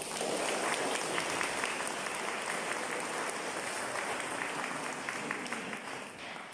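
Audience applauding, a dense steady patter of many hands clapping that thins out near the end.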